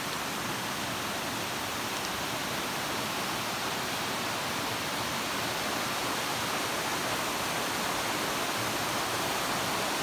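Waterfall rushing steadily, a constant hiss of falling water with not much flow in it, growing slightly louder near the end.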